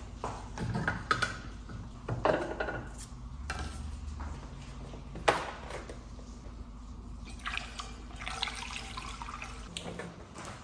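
Antifreeze coolant poured from a plastic jug through a plastic funnel into the coolant tank, with sharp clicks and knocks from the jug and funnel being handled. A steady low hum runs underneath and stops near the end.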